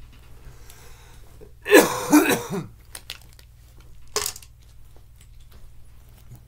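A man coughing and clearing his throat: one loud, harsh fit about two seconds in, then a shorter cough about four seconds in.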